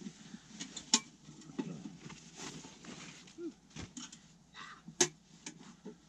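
Camping gear being handled: rustling with scattered sharp clicks and knocks, the loudest about a second in and about five seconds in.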